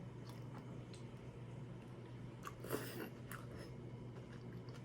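Faint chewing and mouth sounds of a person eating seafood, with scattered small clicks and one louder short smack a little after halfway.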